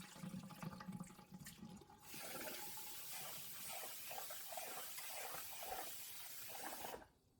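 Tap water running while raw rice is rinsed. It starts about two seconds in and cuts off suddenly near the end.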